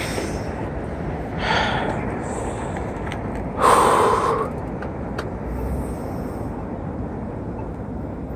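A person breathing hard, with one loud gasping breath about three and a half seconds in and a softer one earlier, over a steady rushing background noise.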